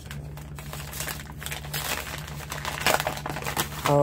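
Packaging crinkling and rustling as craft supplies are handled and unwrapped, in irregular crackles that grow busier after about a second and a half.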